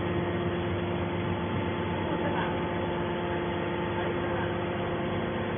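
Horizontal hydraulic scrap-metal baler running, a steady hum made of several constant tones from its motor and hydraulic pump.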